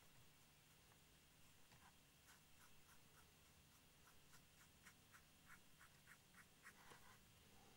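Faint, light ticks of a fine paintbrush dabbing thick paint onto a hollow acetate model shell, a run of short taps that come closer together and a little louder after about four seconds.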